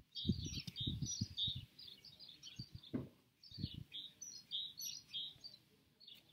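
Songbird chirping, short high notes repeated throughout. Soft low thuds of footsteps on the patio paving come through in the first second and a half and again around three seconds in.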